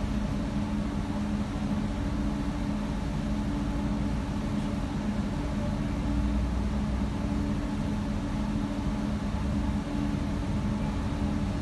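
Steady engine drone of a passenger water bus heard from inside its cabin: a low rumble with a constant two-note hum.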